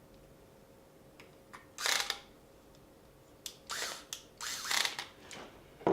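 Several short clicks and scrapes of a laptop hard drive and its caddy being handled and screwed back together.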